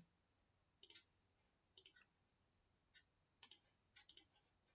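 Faint clicks of a computer mouse, mostly in quick pairs, spaced about a second apart.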